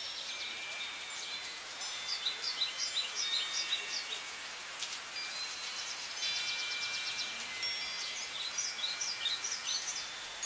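Two runs of short, high bird-like chirps, several a second, with ringing chime-like tones between them, over a steady hiss.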